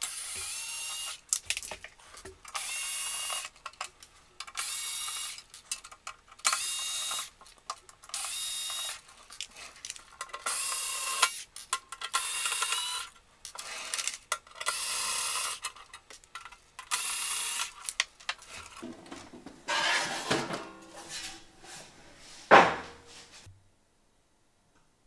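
Cordless electric screwdriver whirring in a string of short runs, each about a second long, backing out the case screws of a cassette deck. Near the end the sheet-metal cover scrapes and rattles as it comes off, and lands with a loud clunk.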